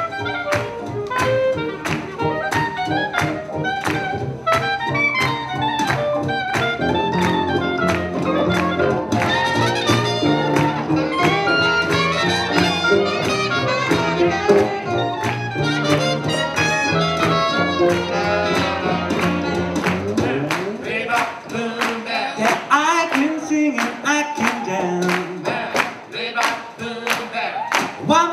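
Live swing jazz band with saxophone and trumpet playing an up-tempo instrumental passage over a steady beat. About two-thirds of the way through the bass drops out, a pitch glides upward, and the horns carry on without the low end.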